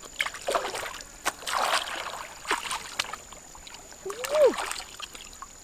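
Hands splashing and scooping in shallow muddy water while searching for crabs, with a few sharp clicks. About four seconds in comes one short call that rises and then falls in pitch, the loudest sound.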